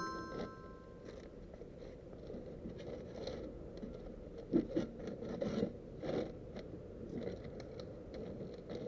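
Irregular scraping, clicking and knocking of hand work on a scooter being taken apart, with one sharper knock about halfway through.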